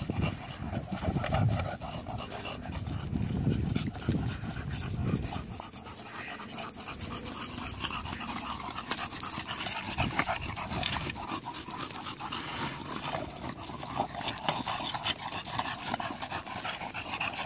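English bulldog panting.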